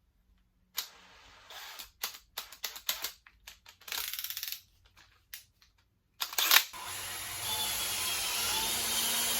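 Scattered clicks and knocks as a drill and bit are handled, then about six seconds in a drill starts and runs steadily, boring a pilot hole into the end of a wooden board so that the screw will not split it.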